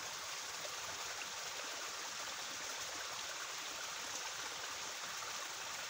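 Creek water flowing steadily, a continuous even hiss with no breaks; the creek is running high after heavy rain.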